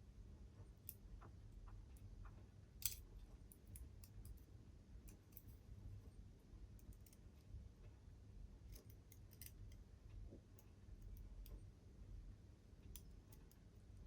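Faint, scattered clicks of small metal model-locomotive parts and tools being handled as the valve gear is fitted, with one sharper click about three seconds in, over a low steady hum.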